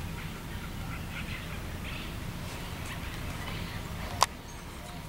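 Faint, scattered bird chirps over a low steady rumble, with one sharp click about four seconds in.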